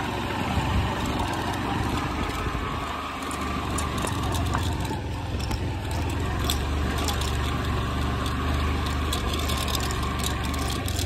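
Motorcycle engine running steadily at low revs on a rough off-road forest trail, with scattered sharp clicks and knocks over the steady hum.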